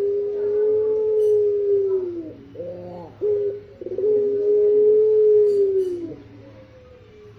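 A pelung puter (collared dove) cooing: a long drawn-out coo of about two seconds that drops in pitch at its end, two short coos, then a second long coo that falls away at its end.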